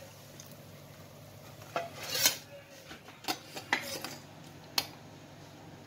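Steel spatula clinking and scraping against a griddle and a steel plate as a cooked paratha is lifted off and set down: a handful of sharp clinks, the loudest about two seconds in.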